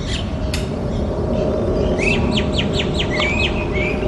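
A bird calling in a rapid run of quick chirping notes, about five a second, starting about halfway through, over a steady low background rumble, with two sharp clicks in the first second.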